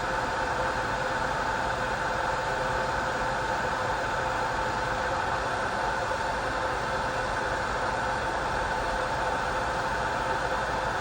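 A steady machine hum with a constant whine, unchanging throughout.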